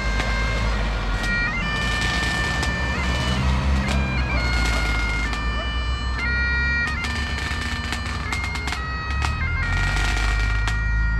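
Highland bagpipes playing a slow tune, the chanter stepping between held notes, over a low rumble of passing traffic; a car drives past near the start.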